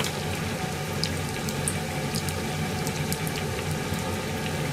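Food deep-frying in hot oil: a steady sizzle with scattered small pops, over a low steady hum.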